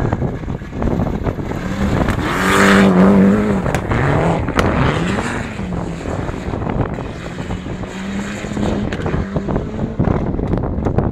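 Peugeot S2000 rally car racing past on a dirt track: its engine is loudest about three seconds in as it goes by close, then the note climbs and drops repeatedly through gear changes as it drives away. Wind buffets the microphone throughout.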